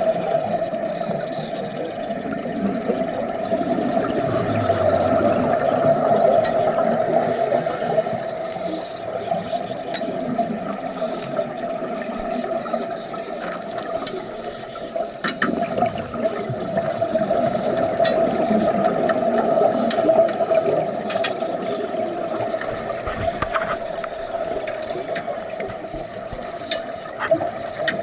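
Underwater sound on a scuba dive: gurgling of divers' exhaled regulator bubbles over a steady hum, with scattered clicks.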